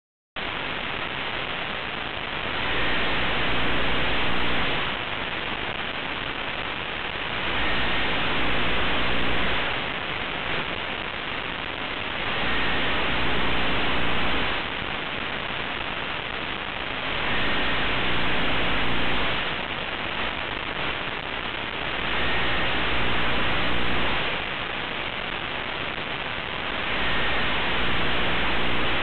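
Dense static-like hiss that swells louder for a couple of seconds roughly every five seconds, with a short faint beep at the start of each swell.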